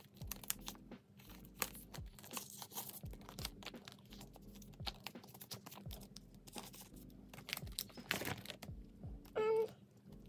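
Thin plastic photocard sleeves and binder pockets rustling and crinkling as they are handled and cards are slid in, with scattered light clicks and taps. A louder crinkle comes about eight seconds in.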